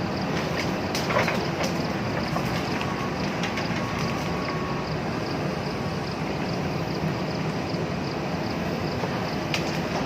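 JCB backhoe loader's diesel engine running steadily under working load, with a few sharp knocks, about a second in and again near the end, as the bucket strikes rock and soil.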